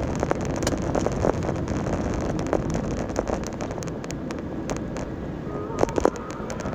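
Road and engine noise of a moving car heard from inside the cabin, with wind rumble on the microphone. Two sharp knocks come about six seconds in.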